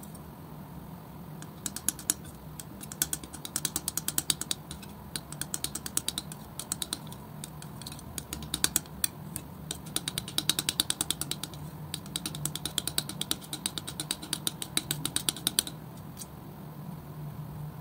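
Steel palette knife mixing and spreading thick wet acrylic paint: a quick run of clicks and taps, several a second, starting a moment in and stopping shortly before the end, over a low steady hum.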